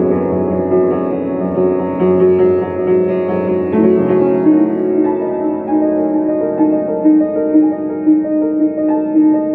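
Piano music of held, overlapping notes; from about halfway through, one note repeats at a steady pulse of roughly two a second.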